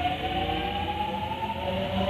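Electric train's traction motors whining as it accelerates: several tones rising slowly together in pitch over a low running rumble.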